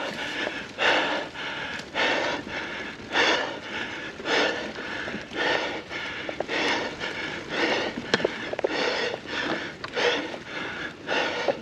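A mountain biker's heavy, rhythmic breathing, about one loud breath a second. He is labouring hard on a steep uphill climb.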